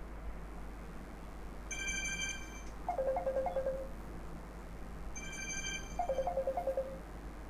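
Short electronic ringtone tune played twice: a bright high chime followed by a fast fluttering run of lower notes that steps down, each round lasting about two seconds.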